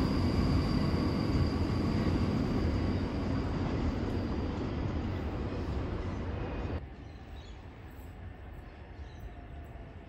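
Freight train of box wagons rolling away along the line, a steady rumble of wheels on rail that slowly fades. About two-thirds of the way through the sound drops suddenly to a much quieter background.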